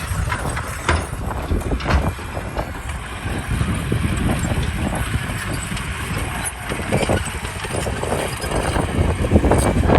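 Diesel engine of heavy earthmoving machinery running steadily, with a few scattered knocks and clanks.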